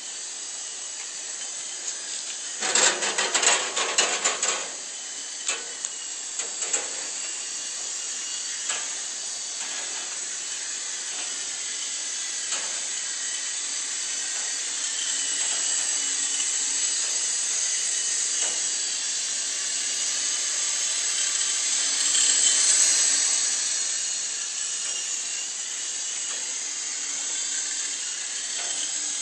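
Small 9099 remote-control helicopter flying, its electric motors and rotor blades giving a steady high whirring hiss that swells around twenty-two seconds in and eases off again. About three seconds in there is a short burst of loud clattering knocks, with a few lighter knocks after it.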